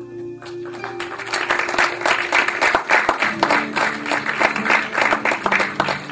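Audience applauding, starting about half a second in and quickly growing dense, over soft background music.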